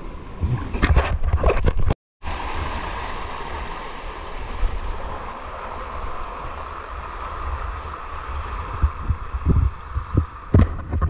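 Rushing river water, with knocks and low rumbling buffeting on the microphone. The sound cuts out briefly about two seconds in, then runs on as a steady rush, with more knocks near the end.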